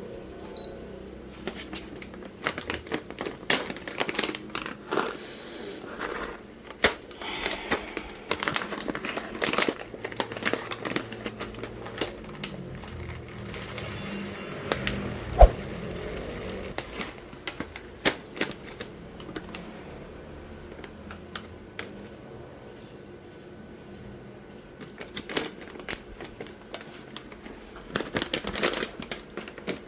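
Clicks, taps and clatter of espresso gear being handled on a counter, with one sharp knock about halfway through.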